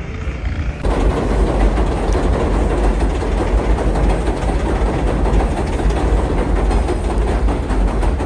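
Loud, steady rumble of a passing train, starting suddenly about a second in.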